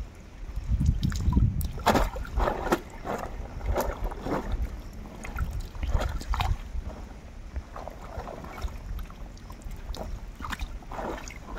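A caught fish being handled in shallow water at a pond's edge: irregular splashes, rustles and knocks, loudest in the first couple of seconds.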